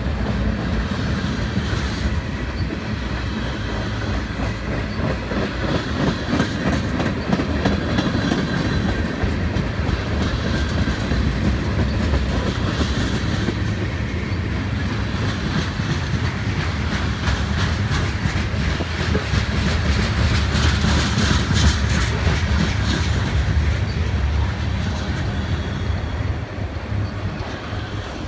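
Freight cars of a Norfolk Southern manifest train rolling past close by: a steady, loud rumble of steel wheels on rail with a rapid run of clicks as the cars go over the track.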